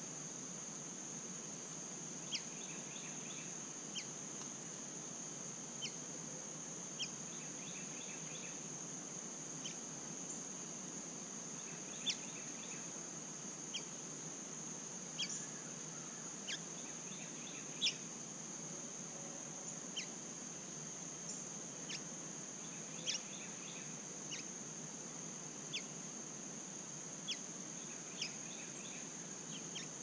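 A steady high-pitched insect drone runs throughout, with a songbird giving short, sharp chip notes every second or two and a few brief trilled phrases.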